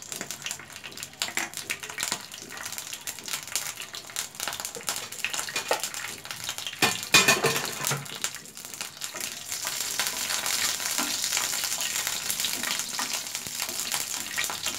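Mustard seeds and two dried red chillies sizzling and crackling in hot mustard oil in a frying pan, the tempering stage where the seeds are fried until they pop. A loud flurry of crackles comes about seven seconds in, and from about ten seconds the sizzle thickens into a steady hiss.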